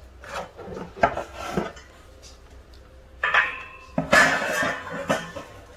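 Metal cart frame and wooden shelf board being handled during assembly: a few light knocks and rustles, a brief metallic ring about three seconds in, then the board knocking and scraping against the frame around four seconds in.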